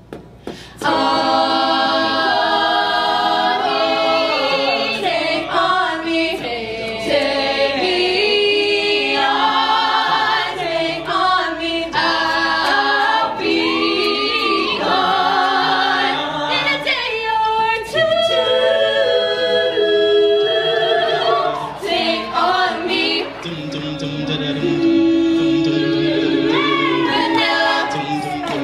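Eight-voice a cappella group singing a pop-song mashup, a lead voice moving over held harmony chords from the other voices. The singing comes in loud about a second in.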